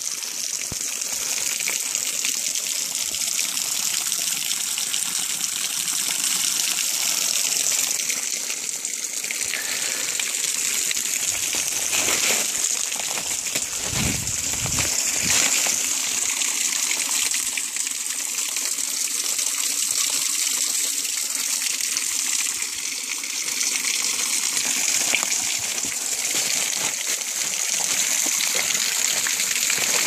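Small waterfall spilling over a rock ledge: a steady rushing hiss of falling, splashing water. A few low bumps come in the middle.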